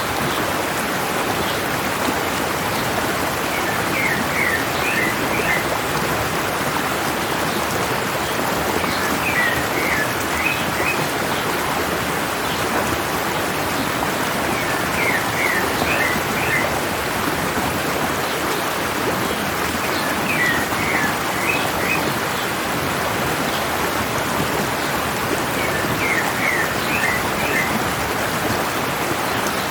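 Running water of a mountain stream, a steady rushing, with a songbird singing a short phrase of several quick notes about every five to six seconds.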